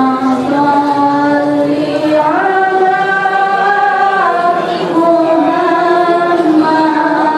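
Voices chanting a slow melody in long held notes, the pitch stepping up or down every second or two.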